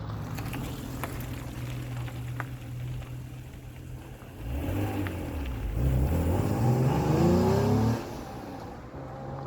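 Acura NSX V6 idling steadily through its exhaust, then revved: the pitch climbs for about three seconds and falls back to idle near the end.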